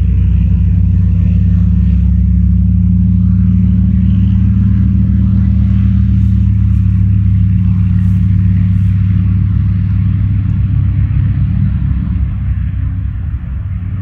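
Aircraft engine running steadily, a deep even rumble that eases off a little near the end.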